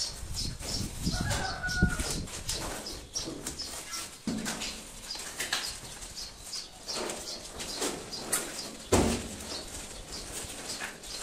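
Hand-tool work: rapid repeated scraping or brushing strokes, several a second, with a single sharper knock about nine seconds in.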